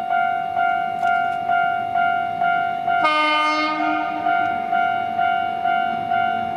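Electric bell of a railway level crossing ringing in even strokes, about two a second. About three seconds in, a locomotive horn sounds one short blast of about a second.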